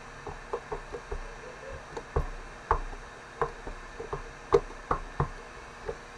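A run of irregular light taps or knocks, about fifteen in six seconds, the sharpest one about four and a half seconds in, over a faint steady hum.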